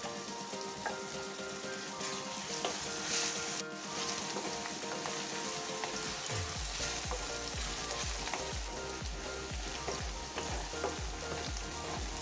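Sliced onions frying in oil in a steel kadhai, sizzling steadily while a spatula stirs them; the onions are at the translucent stage.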